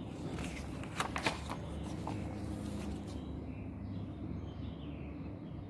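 A brief rustle of paper with a few sharp clicks about a second in, like a book page being turned, over a steady low hum.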